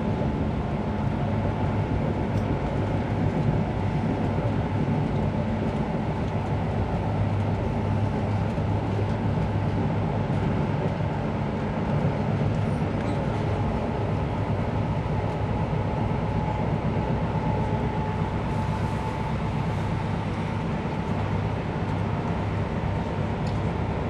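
Steady running noise inside a First Great Western High Speed Train passenger coach travelling at speed: wheels on the rails with a low, even hum.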